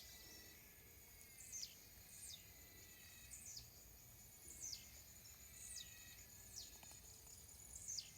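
Faint outdoor ambience: a steady high-pitched insect trill, crossed about every second by short, quickly falling high chirps, often two close together.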